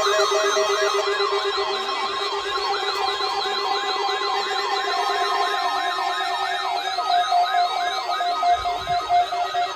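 Weather alert radios sounding their alarms for the NOAA Weather Radio weekly test. Several fast warbling siren tones overlap with pulsing beeps, over a steady alert tone that stops about seven seconds in.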